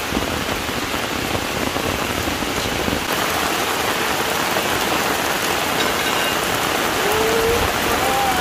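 Steady heavy rain pattering on the ground and leaves, growing a little louder about three seconds in.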